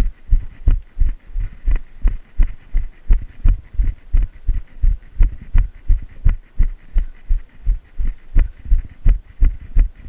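A trail runner's footfalls thudding in a steady running rhythm, about three strides a second.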